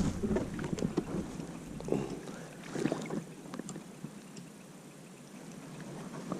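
Scattered light knocks and rustling handling noises in a fishing boat, busiest in the first few seconds and then dying away.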